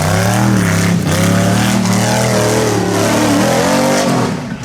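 Rock racing buggy's engine revving hard, its pitch climbing at the start, rising and falling repeatedly as the throttle is worked, then dropping briefly near the end.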